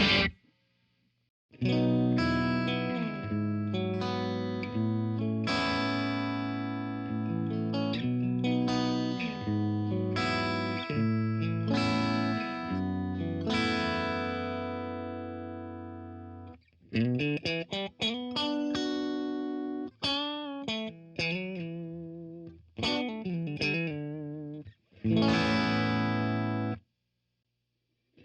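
Electric guitar played through a Blackstar Studio 10 6L6 valve amp: sustained chords ringing out and fading one after another, then a run of quicker picked single notes with vibrato, and a last chord near the end.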